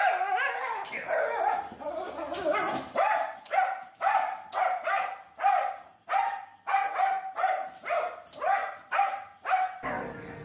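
Small dog, a miniature schnauzer, giving high-pitched, whiny yelping calls, then barking in a steady run of short yips at about two a second, while it faces the television. The barking stops abruptly near the end.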